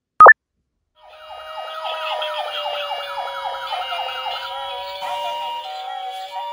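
A short rising beep at the very start, then about a second in several electronic toy emergency-vehicle sirens start sounding together: a fast repeating yelp over a slow rising-and-falling wail, with a two-tone hi-lo alternating from about five seconds in.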